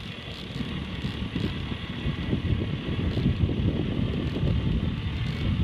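Wind buffeting the microphone: a low, irregular rumble that grows louder about two seconds in, over a steady hiss.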